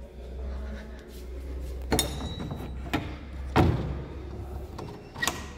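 Wooden door being unbolted and opened: sharp metallic clinks of its steel bolts and handle about two and three seconds in, a dull thud of the door a little after, and another ringing metal clink near the end.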